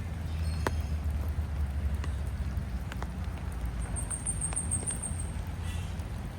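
Wet park ambience: a steady low rumble under scattered ticks of dripping rainwater. A bird gives a short, very high, rapid trill about four seconds in.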